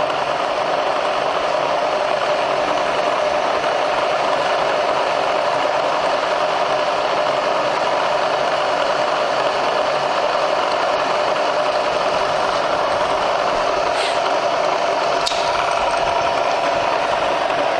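Bridgeport variable-speed-head milling machine running with its spindle turning and the quill power feed engaged: a steady mechanical whir of the head and feed gearing, with a couple of light clicks near the end.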